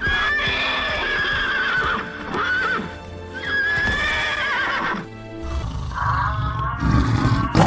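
Horse whinnying in long, high, wavering calls over background music, then a low rough rumble starting about five and a half seconds in.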